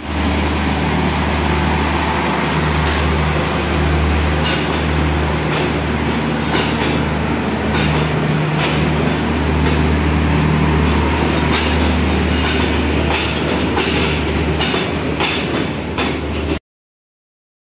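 Diesel passenger train running alongside a station platform: a steady low engine drone and rumble with scattered clacks from the wheels. It cuts off suddenly near the end.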